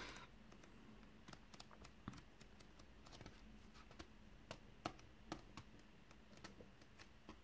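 Faint, scattered soft ticks of paperback manga pages flicking off a thumb as the book is leafed through.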